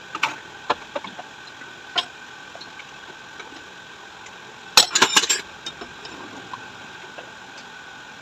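Metal tools and parts clinking as they are handled: a few single clinks in the first two seconds, then a quick run of louder clanks about five seconds in, over a faint steady high hum.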